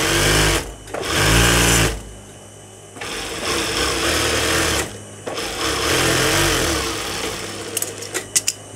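Electric sewing machine stitching a seam through fabric in four short runs, starting and stopping, its whine rising and falling as it speeds up and slows. A few sharp clicks near the end.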